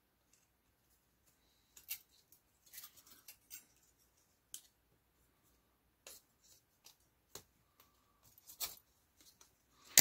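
Hand pliers clicking and snipping at a small metal compression fitting while a hair dryer's thermal fuse is worked free: a scattering of faint, short clicks.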